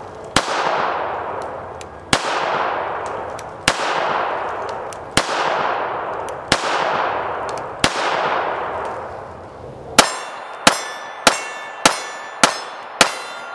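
Beretta Model 70S .380 ACP pistol firing 100-grain full-metal-jacket rounds. Six shots come about one and a half seconds apart, each with a long fading echo. From about ten seconds in, six quicker shots follow about twice a second, each leaving a ringing tone.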